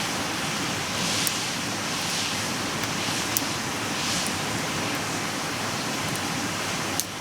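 Wood campfire burning, with a steady hiss and a few sharp crackling pops, one loud pop near the end.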